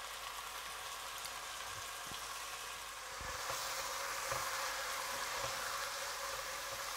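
Chicken, onion and ground walnut frying over high heat in a pot, a steady sizzle that grows a little louder about three seconds in. A few soft knocks of the spatula against the pot come as the mixture is stirred.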